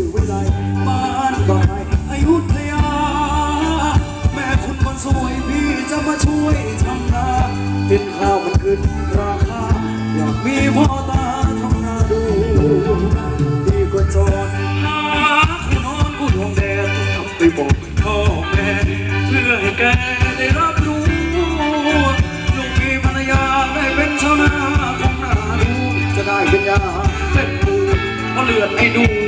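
Live band playing Thai ramwong dance music with a singer over a steady drum beat.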